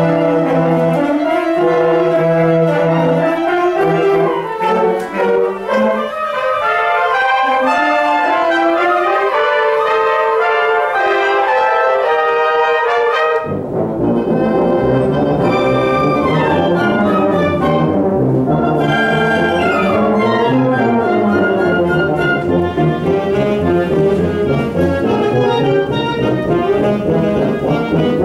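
College concert band playing live, with flutes, saxophones and brass. The low instruments drop out about six seconds in, leaving the upper voices alone, and the full band comes back in with them about halfway through.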